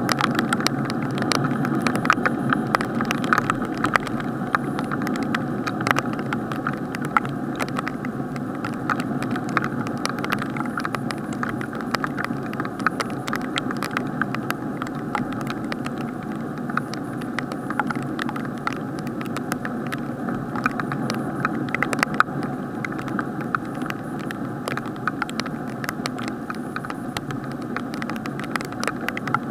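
Rain heard from inside an action camera's sealed waterproof housing: a muffled steady rush with frequent sharp ticks of raindrops striking the case.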